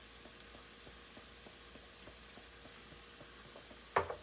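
Beef and broccoli frying in sauce in a skillet: a light, steady sizzle with many small crackling pops. About four seconds in there is a single sharp clatter, the loudest sound.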